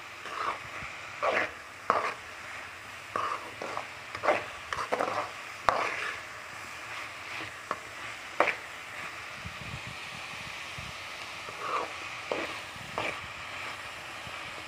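Metal spoon scraping and stirring chopped onions around a metal kadai in irregular strokes, with a pause of a couple of seconds past the middle, over a steady sizzle of the onions frying.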